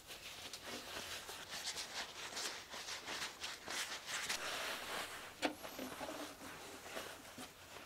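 Soft rustling and scratching as a sheepskin bagpipe bag and its leatherette lining are handled and smoothed by hand, with a sharper click about five and a half seconds in.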